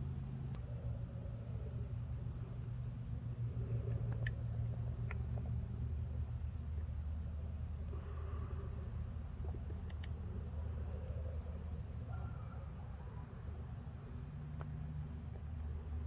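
Night insects, crickets, trilling in one steady high-pitched note with a fainter higher one above it, over a low steady hum.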